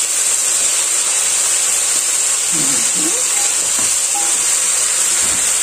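Chicken pieces and vegetables sizzling steadily in a hot frying pan over a gas flame as they are stirred with a spoon.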